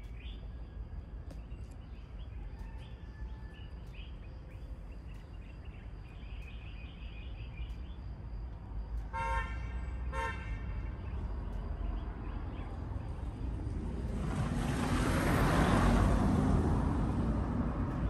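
A vehicle horn gives two short toots about a second apart, then a vehicle drives past, its noise swelling and easing off. Faint bird chirps sound in the background.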